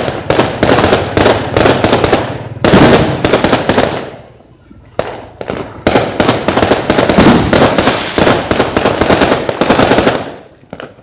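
Fireworks going off in rapid volleys of sharp bangs and crackling, with a short lull about four seconds in and the barrage dying away near the end.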